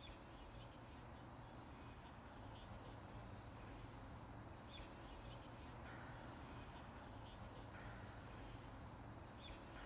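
Faint outdoor ambience: a steady low rumble with short, high-pitched chirps repeating roughly once a second.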